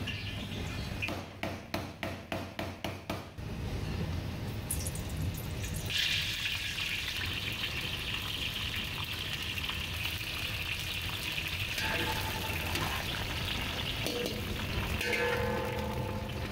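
Lemongrass and pandan leaves sizzling in hot oil in a wok, the hiss starting suddenly about six seconds in and running on steadily as they are stirred. Before that comes a quick run of about nine sharp taps.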